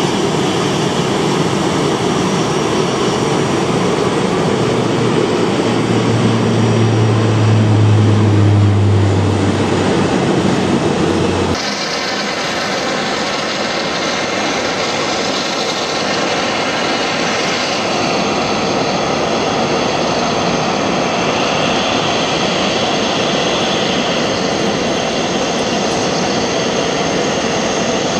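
Airbus A320-214's CFM56 jet engines as the airliner rolls out after landing: a loud rushing run with a low drone that swells and then falls away. About twelve seconds in, the sound changes abruptly to the steadier whine of the engines at idle while the aircraft taxis.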